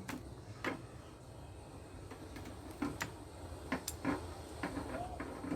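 Scattered light clicks and taps of hand tools and small metal parts as a hot water dispenser is taken apart, irregular and a few per second at most.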